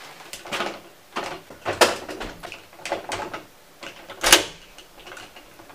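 Metal lever door handle on a locked door being yanked up and down, the latch clacking and the door rattling in its frame in a quick irregular run, with the loudest bang about four seconds in.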